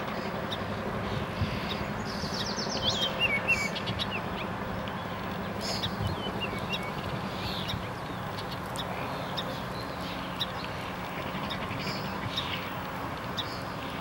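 Wild songbirds chirping and calling over a steady outdoor background rush, with a cluster of quick high warbling chirps a few seconds in.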